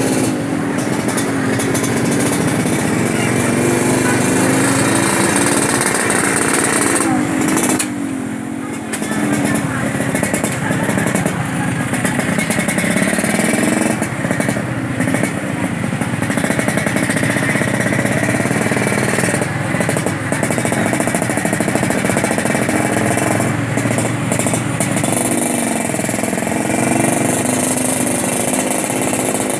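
Road traffic: engines running steadily, with voices mixed in and a short lull about eight seconds in.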